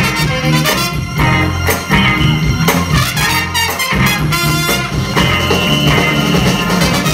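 Live soul band with a horn section playing an up-tempo Motown cover over a steady drum beat. A horn holds a long note near the end.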